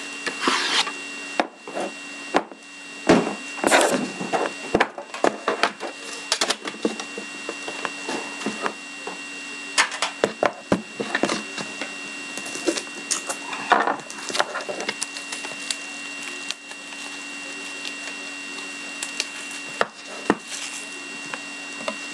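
Plastic shrink-wrap on a cardboard trading-card box being slit with a knife and torn off, with the box handled on a desk: irregular scratching, crinkling and sharp clicks throughout. A faint steady electrical hum and whine sits underneath.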